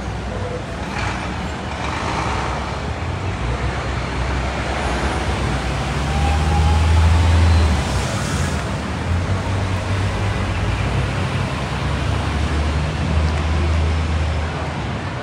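Heavy traffic on a city avenue: cars, taxis and a van driving past with a steady engine rumble and tyre noise. It is loudest about halfway through, as vehicles pass close.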